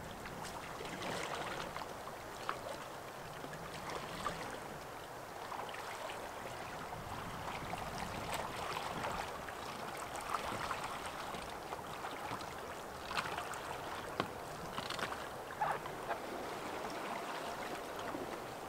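Soft, steady lapping of calm lake water at the shore, with faint scattered ticks and small splashes as a packraft canoe is paddled in.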